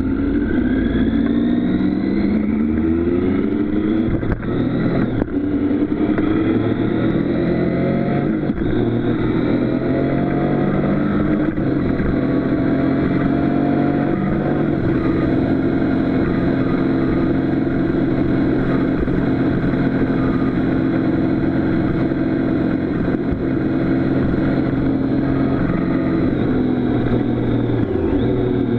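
Motorcycle engine accelerating up through the gears, its pitch rising in each gear and dropping back at three or four upshifts, then running steadily at cruising speed for the second half.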